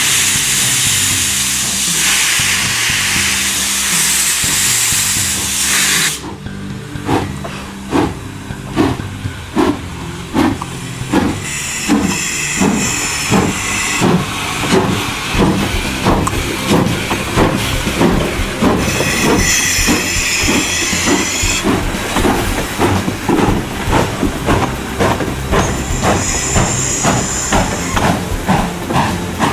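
Spokane, Portland & Seattle 700, a 4-8-4 steam locomotive, starting away: a loud steady hiss of steam for about six seconds, then exhaust chuffs that quicken as it gathers speed. Spells of higher hissing come and go over the chuffs.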